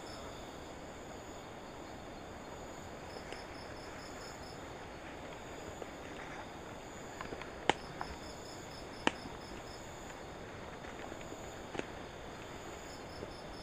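Crickets and other night insects chirping in short, rapid pulse trains over a steady high buzz. A few sharp snaps stand out, the loudest about eight and nine seconds in.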